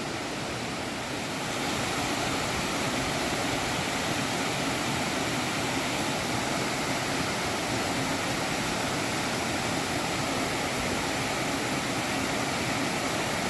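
Water pouring over the lower falls of Fall Brook, a small waterfall in a rocky gorge: a steady rush that swells a little about a second and a half in, then holds even.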